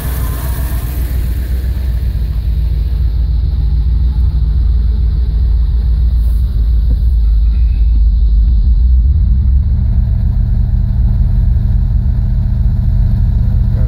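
Vehicle engine running steadily on wood gas, a continuous low rumble that grows a little louder about nine seconds in.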